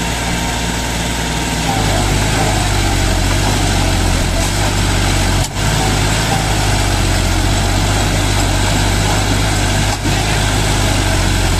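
Tractor diesel engine running steadily under load, the stuck John Deere 5050D straining to drive out of deep mud while being towed; the engine note steps up about two seconds in. Voices in the background.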